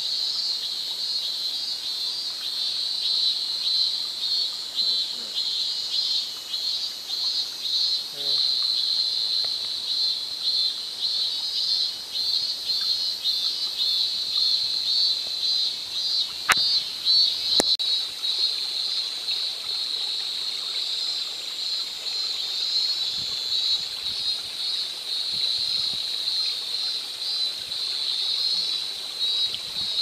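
A chorus of insects: a steady, high-pitched shrill trill that pulses quickly and never stops, with two sharp clicks about halfway through.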